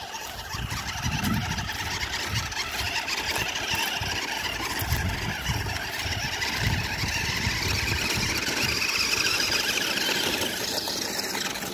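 Toy RC monster truck's small electric motor and plastic gears whining steadily as it drives through muddy water and mud, with irregular low rumbling underneath.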